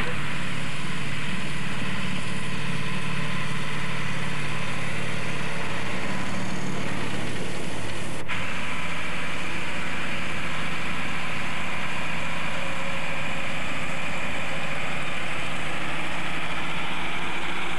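Heavy truck engines running steadily at a road-construction site, with a low, even pulsing. The sound changes abruptly about eight seconds in, at a cut to a tanker truck spraying stabilizer on the road base.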